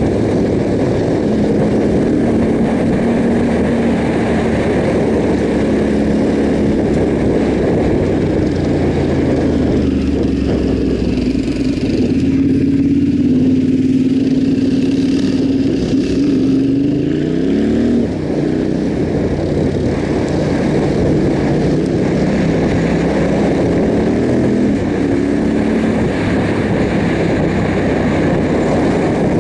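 Yamaha Ténéré 700's parallel-twin engine running under way off-road, its pitch holding steady for stretches and then dropping and climbing again as the bike slows and accelerates, most clearly a little past the middle.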